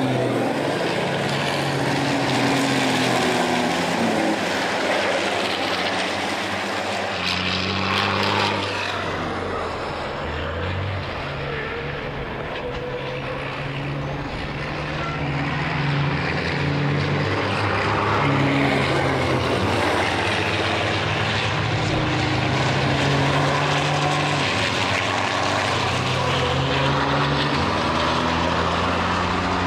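Several racing trucks' turbodiesel engines running hard on a circuit, a steady drone whose notes step up and down in pitch as the trucks accelerate and shift. About eight seconds in, a louder rush as a truck passes close.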